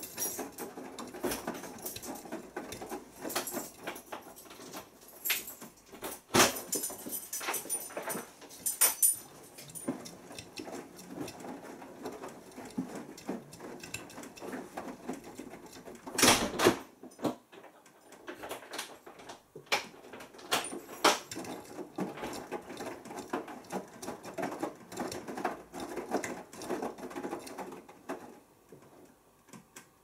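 Beko Excellence washing machine drum tumbling wet clothes during the heating phase of a synthetics 40 °C wash: soft irregular pattering and sloshing, with a few sharp knocks, the loudest about 6 and 16 seconds in. The drum stops turning near the end and the sound drops away.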